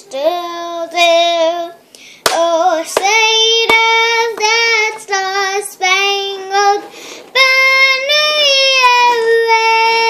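A young girl singing unaccompanied in short phrases of held notes with brief breaks between them, ending on a long held note. Two sharp clicks a few seconds in.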